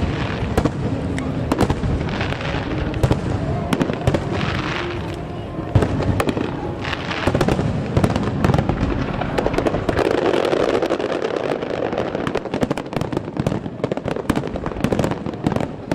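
Fireworks display going off in a dense barrage: many aerial shells bursting in quick succession, with booms and crackles, over music played through loudspeakers.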